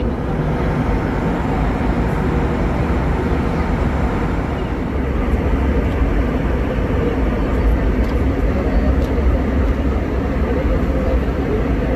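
Steady cabin noise inside an Airbus A320 in flight: the even drone of the engines and the airflow, heaviest in the low end.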